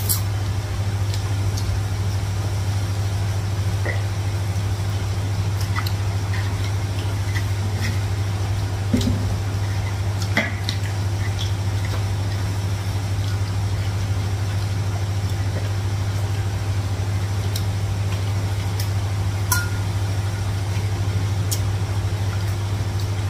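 Steady low machine hum, with a few faint clinks of plates and spoons scattered through it.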